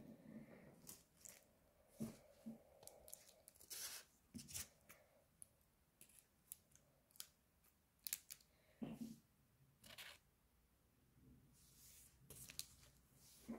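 Paper and clear tape rustling and crackling in short, irregular bursts with a few soft knocks, as a small paper-and-tape figure is handled.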